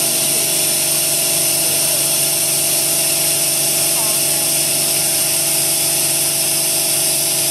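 Self-propelled pulse laser cleaning machine running as it cleans ceramic tile: a steady hum with several held tones under a loud, even high hiss.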